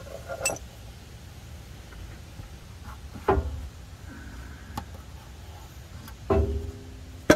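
Occasional knocks and scrapes, four in all, as the unbolted automatic transmission pan resting on a wooden board is worked down by hand; one knock near the end rings briefly.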